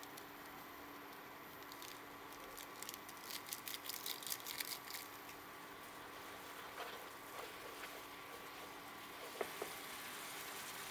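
A quick crackly rustle from about two to five seconds in, then a wooden spatula stirring instant noodles and seasoning in a shallow pan, with soft scrapes and a sharper tap near the end, over a faint steady hum.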